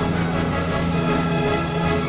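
Orchestral background music with held notes and a steady beat.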